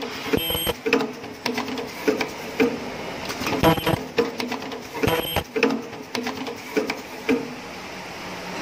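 Ultrasonic mask earloop welding machine working: repeated sharp mechanical clacks and knocks as its welding horn cycles onto the mask, with three brief high-pitched whines from the ultrasonic welding.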